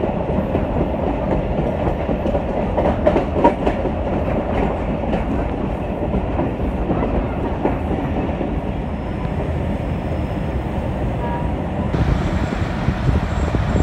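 Passenger coach running along the track at speed, heard from an open coach door: steady wheel-on-rail rumble, with a run of clattering clicks from the rail joints a few seconds in.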